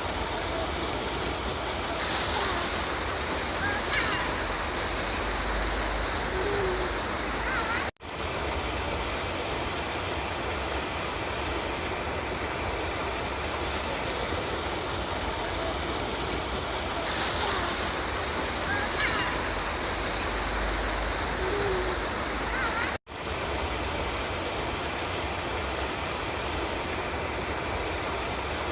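River water rushing steadily in a continuous even wash, broken by two brief dropouts about fifteen seconds apart.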